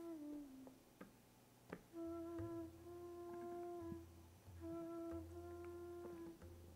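Soft, slow background music: long held notes that sound like a wind instrument, with a faint low drone underneath, after a short falling note and a brief near-silent pause at the start.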